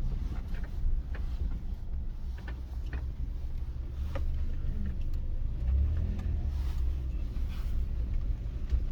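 Mitsubishi Pajero iO being driven, heard from inside the cabin: a steady low engine and road rumble with a few faint ticks.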